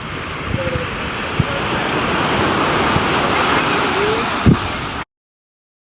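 Surf breaking on a beach, the wash swelling over a few seconds, with wind buffeting the microphone and a couple of short, faint seagull calls. The sound cuts off abruptly about five seconds in.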